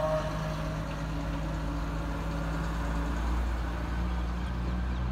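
Road traffic passing: the steady low rumble of a heavy container truck's engine and cars on the road.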